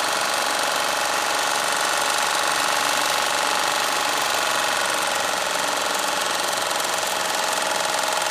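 Philips MP 1002 CA paraffin-fired Stirling engine generating set running steadily, an even, fast mechanical running sound with no change in speed.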